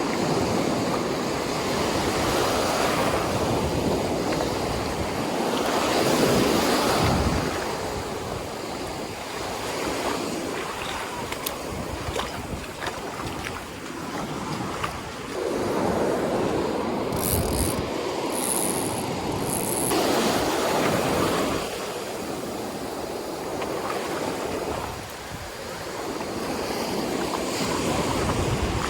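Rough Atlantic surf breaking on the beach, the roar of the waves swelling and easing every few seconds, with wind gusting against the microphone.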